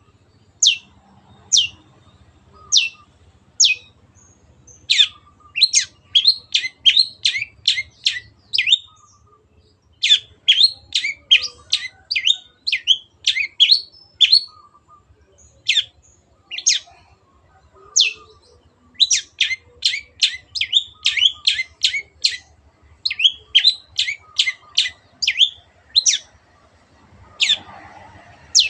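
Long-tailed shrike (cendet) calling: short sharp notes, each falling steeply in pitch. They come singly about a second apart at first, then in fast runs of about five or six a second.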